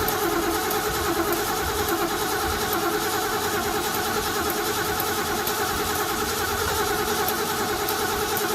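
Ford 351 Windsor V8 running steadily just after start-up on its freshly regasketed Holley 600 carburetor, still a little cold.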